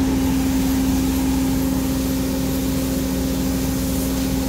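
Belt-driven centrifugal blower and its electric motor running steadily: an even drone with one strong humming tone.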